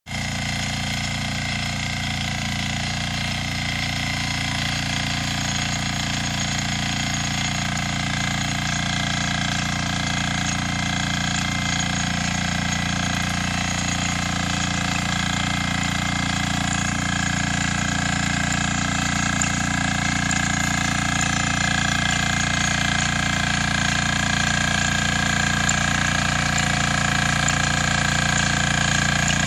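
Yağmur 320 motor hoe's engine running steadily, growing slowly louder.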